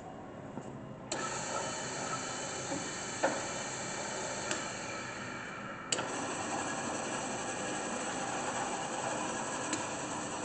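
Rockwell Delta 70-400 production drill press heads running: the 1 hp three-phase spindle motors start with a click about a second in, and a second click about six seconds in brings a fuller, steady running whine, with occasional light clicks of the controls or quill.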